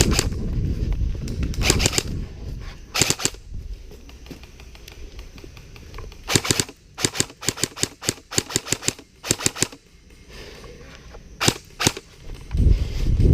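Airsoft guns firing: sharp snapping shots, a few single ones and pairs, then a quick irregular string of about a dozen shots between roughly six and ten seconds in. Low rumble of movement or wind on the microphone at the start and near the end.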